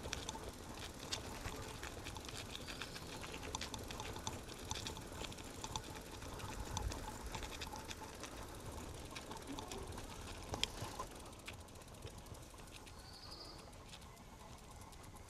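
Bicycle rolling over cobblestones: a low rumble from the tyres, with the bike rattling in a dense run of small clicks that thins out in the last few seconds.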